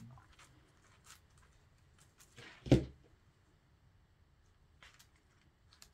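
Faint handling sounds of craft materials, with small soft clicks and rustles as felt is pressed and fitted onto a styrofoam-and-foam popsicle shape. One short, louder bump comes about halfway through.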